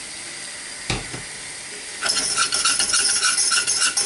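A butter-and-flour roux sizzling faintly in a saucepan, a single thump about a second in, then from about two seconds in a wire whisk beating rapidly against the pan as milk is whisked into the roux for a white sauce.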